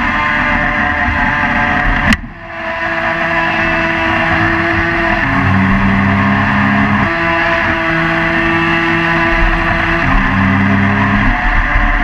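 Remote-control speedboat's motor running under way, with water rushing past the hull, heard from a camera mounted on the boat itself. The motor's pitch steps up and down several times, and about two seconds in a sharp click comes with a brief drop in level that then builds back up.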